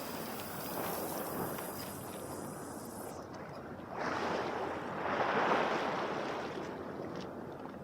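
Sea water washing against the breakwater with wind noise on the microphone; the wash swells twice, about four and five to six seconds in.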